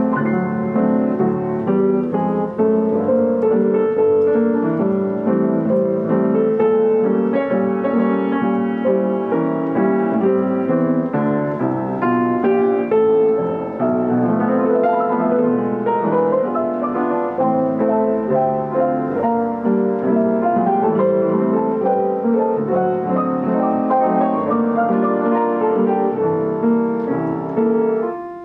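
Yamaha Disklavier piano playing a continuous flowing piece, many notes at once without pause.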